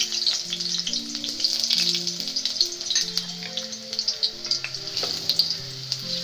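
Sliced red onion sizzling and crackling in hot oil in a stainless steel pot, with a wooden spoon stirring it near the end.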